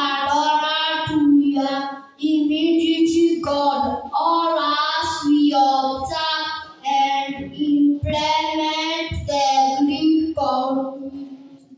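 A group of children singing a song together, in short phrases with brief breaks between them.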